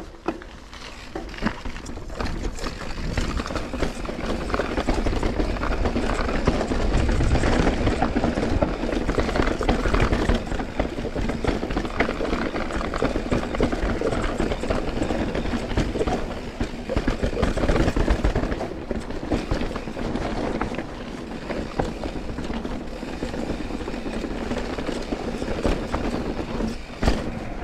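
Mountain bike riding over rough trail: a continuous rattle and tyre noise from the bike, with wind rumbling on the microphone.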